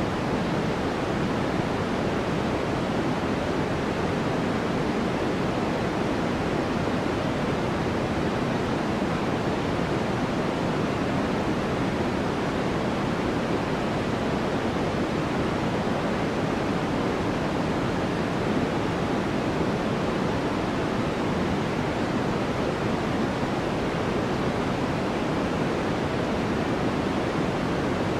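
Steady white-noise background track: an even, unchanging rush, deeper than a bright hiss, with no other events.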